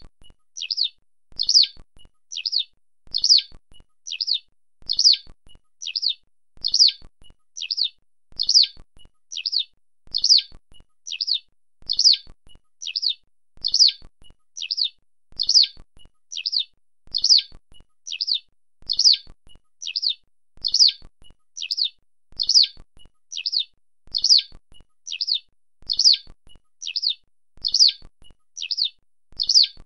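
Eurasian skylark calling over and over, about one call a second: each call is a short faint note followed by a louder high chirp that falls in pitch.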